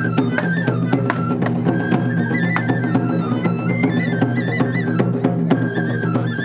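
Shishimai festival music (hayashi): a Japanese transverse flute plays a stepping melody of held notes over repeated drum strikes.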